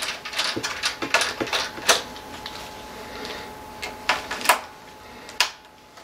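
Irregular clicks, taps and scrapes of a small screwdriver working at the metal case and rear fan panel of a Synology DS1815+ NAS, with several sharper clicks among lighter ticking.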